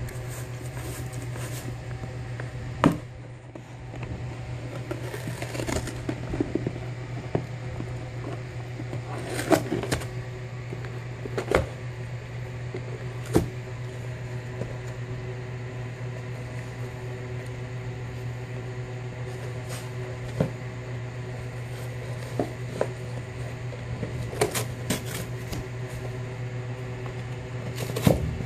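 A dog chewing and ripping a cardboard Kleenex tissue box: scattered crunches and sharp tearing cracks of cardboard, some spells busier than others, over a steady low hum.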